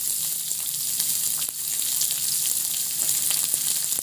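Hot oil sizzling steadily in a kadhai as chopped onion is tipped in on top of frying green chillies, with a few faint ticks among the hiss.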